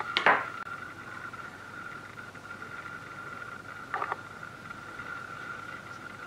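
A steady, faint high-pitched whine, with a sharp knock just after the start and a softer tap about four seconds in. The knock is a knife against a wooden board while cutting dough; the tap is a dough ball set on a plastic digital kitchen scale.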